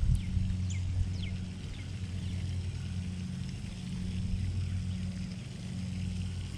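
A steady low mechanical hum, with a second higher hum band fading in and out, under short high chirps that fall in pitch, about one or two a second.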